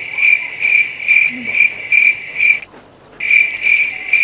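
Cricket chirping: a loud, high, even chirp about twice a second, stopping for about half a second past the middle and then starting again.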